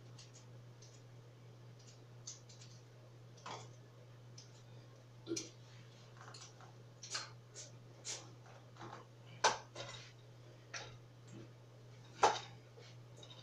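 Irregular light clicks and knocks of kitchen utensils and cookware being handled at the counter and stove, with two louder knocks near the end, over a steady low hum.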